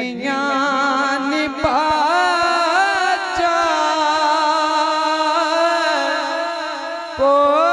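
A man singing a devotional Punjabi naat into a microphone, drawing out one long ornamented note with a wavering pitch, then starting a new phrase near the end.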